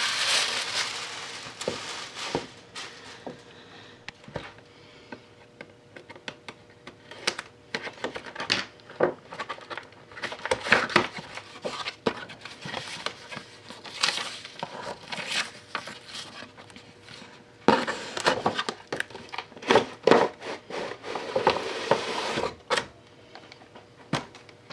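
Tissue paper rustling, then a cardboard doll box being handled and opened: scattered taps, scrapes and rustles, with a busier stretch of handling near the end.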